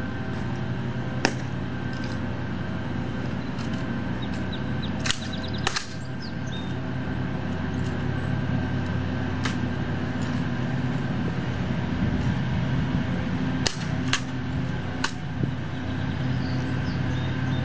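Sharp, isolated clicks and snaps from the sentinels' drill, with heel clicks and rifle handling during the inspection. They come one at a time, with several close together about two-thirds of the way through, over a steady low hum.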